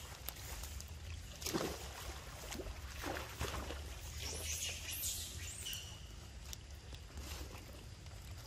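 Macaques splashing and wading through shallow muddy floodwater: a few sudden splashes, the loudest about one and a half seconds in, then short high squeaks near the middle.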